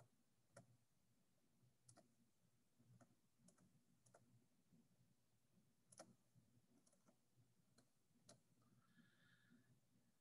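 Faint computer mouse clicks, about ten scattered irregularly over near silence, as breakout rooms are assigned by hand; a faint short tone sounds about nine seconds in.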